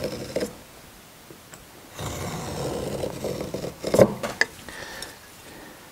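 Marking knife scoring a cut line into a hardwood board along the blade of a steel square: a scratchy scrape that ends just after the start, then a second scrape lasting about two seconds, followed by a couple of sharp metallic clicks about four seconds in as the square is handled.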